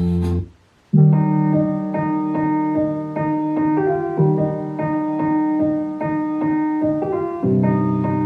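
Background music: a song's last held note fades out, and after a brief gap a piano piece begins, playing repeated chords that change twice.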